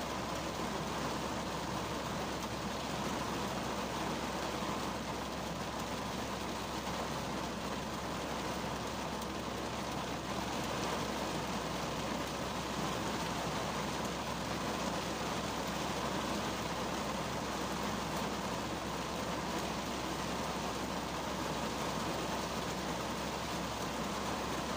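Heavy rain falling on the body and windshield of a 2010 Kia Cerato, heard from inside the cabin as a steady, even hiss.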